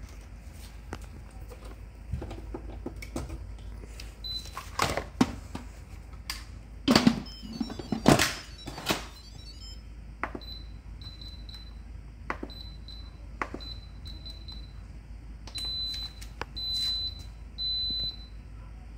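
Instant Pot Ultra electric pressure cooker being closed and set: the lid clatters and knocks as it is put on and locked, then the control dial clicks while the cooker gives a short high beep with each turn, ending in three longer beeps as the cooking programme starts.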